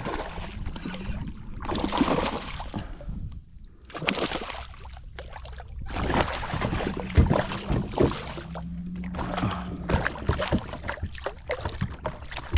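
Water sloshing and splashing around a kayak, with uneven knocks and handling noises on the hull. At times there is a faint, steady low hum.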